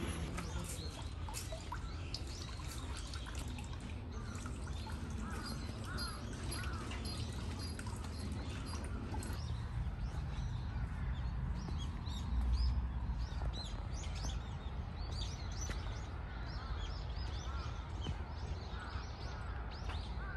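Small birds chirping and calling many times over a steady low rumble of outdoor background noise, with a brief louder low thump about twelve seconds in.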